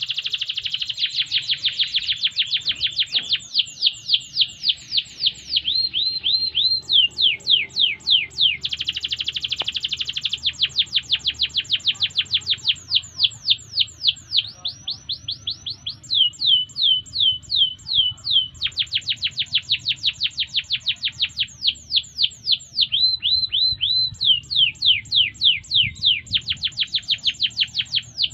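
Domestic canary singing a long song of fast trills: runs of quick, repeated falling whistles, several per second, changing from one phrase to the next with short breaks, including a few brief runs of level notes.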